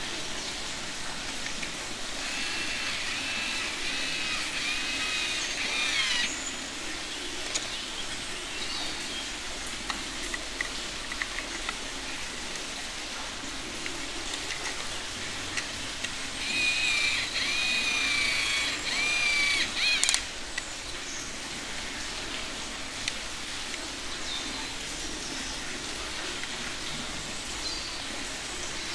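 Small motor of a toy battery-powered screwdriver whining in two runs of about four seconds each, wavering in pitch, as it drives screws into plastic toy vehicle parts. Light plastic clicks come in between.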